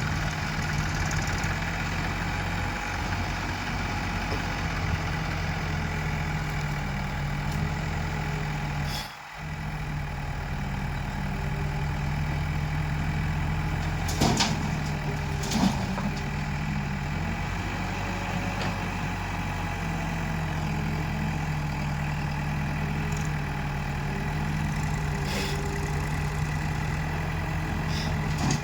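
Heavy-machinery diesel engines running steadily at low revs, with a brief dropout about a third of the way in and a few sharp metallic knocks around the middle and near the end.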